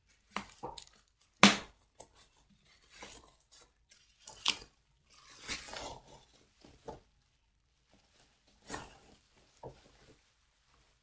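Plastic bubble wrap being torn open and pulled off a hardback book, crinkling and crackling in uneven snatches, with the sharpest tear about a second and a half in.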